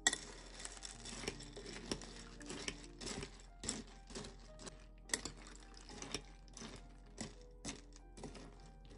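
Metal spoon stirring chocolate cereal balls in milk in a glass bowl: irregular clinks and taps of the spoon against the glass, with the cereal rattling and shifting. Soft background music plays underneath.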